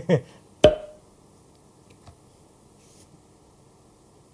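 One sharp knock about half a second in, with a brief ring, from an item being handled while unpacking a gift box; after it, only a couple of faint ticks.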